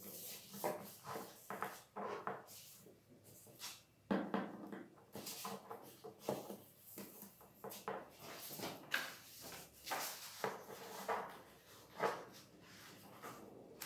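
A sheet of paper rustling and crackling in irregular bursts as it is folded, creased and slid across a table by hand, with a single knock about four seconds in.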